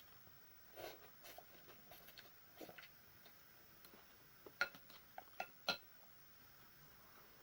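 Quiet eating of a bowl of noodle soup: soft mouth sounds, with several sharp clinks of utensils against the bowl, bunched about four and a half to six seconds in.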